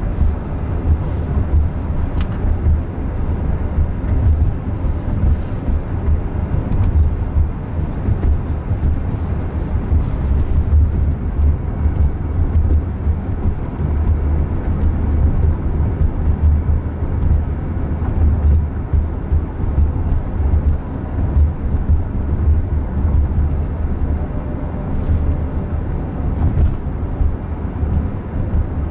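Steady road and tyre rumble inside the cabin of a moving electric Jaguar I-Pace, deep and low with no engine note.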